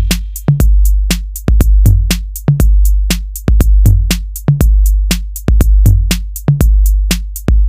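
Electronic intro music: a drum-machine beat with sharp hits about every half second over long deep bass notes, cutting off abruptly at the end.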